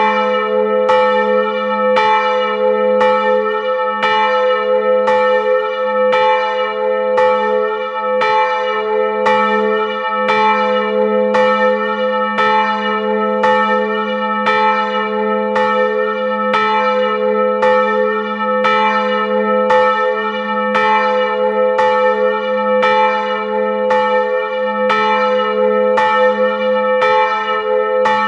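Large swinging bronze church bell, the 550 kg 'Dobry Pasterz' bell tuned to A, cast in 1988 at the Felczyński foundry, ringing in full swing. The clapper strikes evenly about once a second, each stroke ringing on over a steady deep hum.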